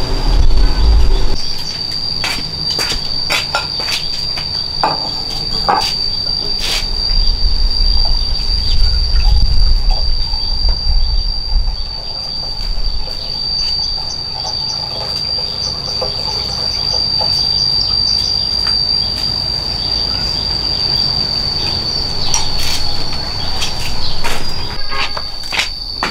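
Insects chirring in one steady, unbroken high tone, with scattered clicks and knocks. A low rumble comes and goes, loudest about a second in and again around eight to ten seconds in.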